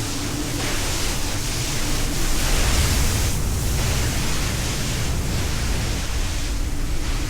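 Speedboat under way at speed: a steady rushing of wind over the microphone and water against the hull, over a low engine rumble.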